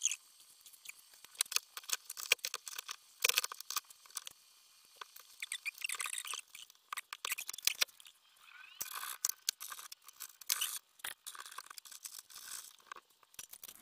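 Sped-up clinking and clattering of steel tools and transmission parts as a bearing puller is fitted to a gearbox shaft: a fast run of metal taps, scrapes and clicks, thin and high with little low end.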